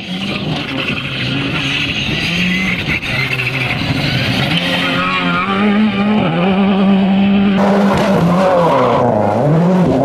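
Rally car engines at high revs, the pitch dipping and climbing again as the drivers lift and change gear, over tyre noise on loose gravel. The sound changes abruptly twice near the end as one car's run cuts to another.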